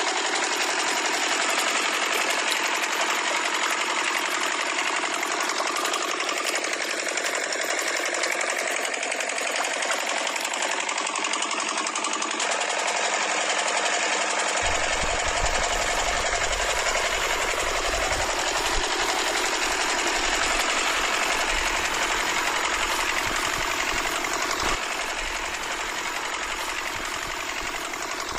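Miniature toy diesel engine running steadily with a fast mechanical rattle, driving two small homemade water pumps through rubber-band belts. A low rumble joins about halfway through.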